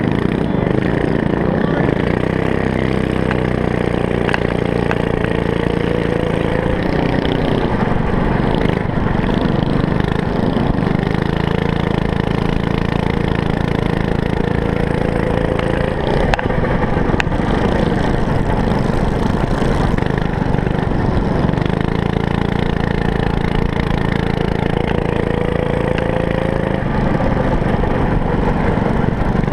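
Small engine of a motorized trike running under way, its revs rising and falling several times as the rider speeds up and slows down.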